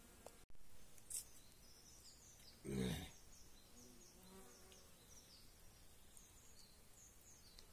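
Quiet woodland ambience with a train of faint, short, high-pitched chirps repeating from about two seconds in. A brief low rumble on the microphone comes about three seconds in and is the loudest thing.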